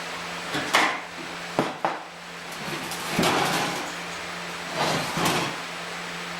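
Metal being knocked and handled: a few sharp clanks, then two short scraping bursts, over a steady low hum.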